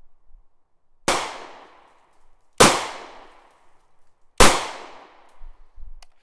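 Three gunshots, about a second and a half to two seconds apart, each a sharp crack with a long echoing tail. A short click follows near the end.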